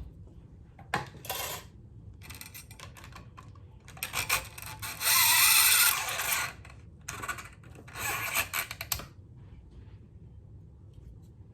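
Steel bass strings being taken off an electric bass: metallic scraping and rattling in several bursts, the longest and loudest about five to six seconds in, with quiet after about nine seconds.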